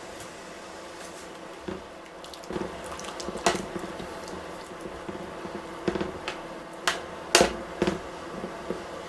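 A pot of water boiling with noodles in it, a steady bubbling hiss, while metal chopsticks stir the noodles and knock sharply against the pot several times from about two seconds in.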